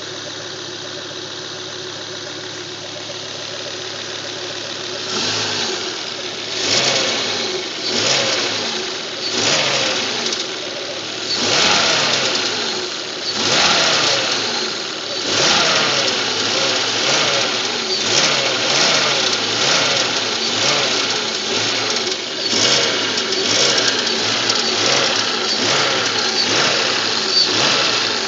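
Volvo 850 T5's turbocharged inline five-cylinder engine idling, then revved again and again from about five seconds in, each rev rising and falling in pitch. It makes a noise the owner calls bad.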